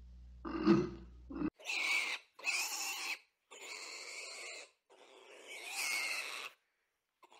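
A white rhinoceros gives one short, low grunt near the start, the loudest sound here. Then wild boar call: four harsh pig grunts, each about half a second to a second long.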